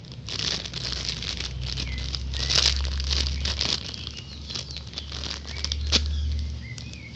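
Rustling and crinkling of a squishy toy being handled close to the microphone, irregular and continuous, over a steady low hum.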